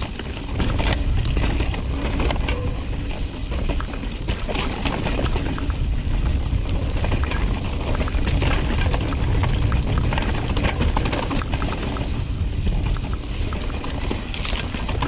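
Mountain bike riding down a rocky dirt trail: tyres grinding over dirt and rock and the bike clattering over bumps, with heavy wind rumble on the microphone. The noise picks up about a second in as the bike gets moving.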